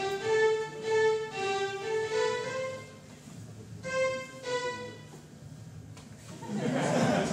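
Laser harp playing synthesized violin-like notes through loudspeakers, one note for each beam that a hand blocks. A run of separate notes comes first, then two more notes after a short lull, then a brief burst of noise near the end.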